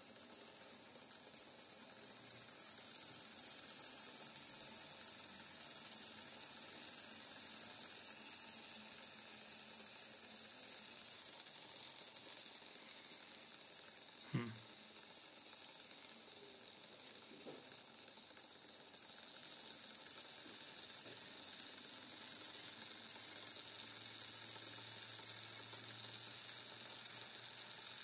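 A steady high hiss that grows stronger in the last third, with one sharp click about halfway through.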